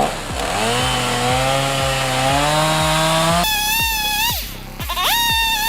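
Chainsaw engine running with a steady pitch that climbs slightly, then a higher-pitched saw whine that dips, cuts out briefly and comes back. Background music with a steady beat plays under it.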